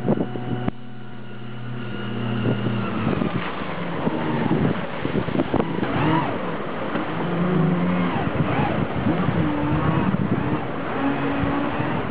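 Engine of a vintage Dynafoil personal hydrofoil running on the water, its pitch rising and falling repeatedly as the throttle is worked.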